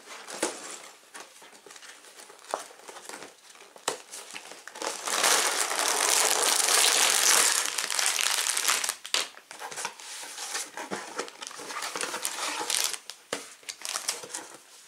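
A cardboard Lego box being opened and a plastic bag of bricks taken out and handled: crinkling plastic, loudest for a few seconds in the middle, with scattered taps and knocks of cardboard and loose pieces.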